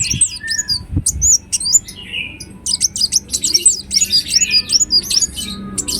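Ruby-cheeked sunbird singing in rapid, high-pitched chirps with quick sweeps in pitch. The notes are scattered at first, then run together into a dense twittering burst from about three seconds in. There is a brief low thump about a second in.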